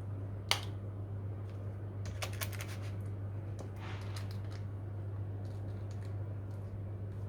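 Light clicks and taps of kitchen utensils and dishes being handled: one sharp click about half a second in, a quick run of clicks about two seconds in, and a soft scrape near the four-second mark, over a steady low hum.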